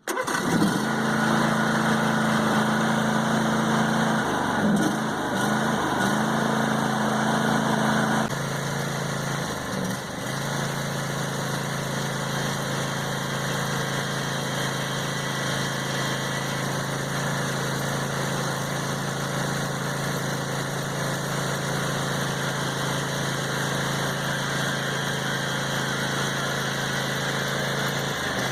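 A 25-horsepower John Deere E180 garden tractor engine running steadily, its pitch dipping briefly a few times; a higher-pitched layer in the sound stops about eight seconds in.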